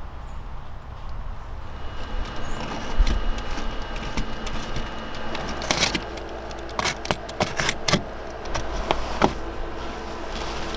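Scattered clicks and knocks from hands and tools working on the carpet and trim inside a car, over a steady low hum.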